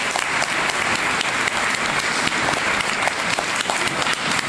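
A congregation applauding: many hands clapping steadily.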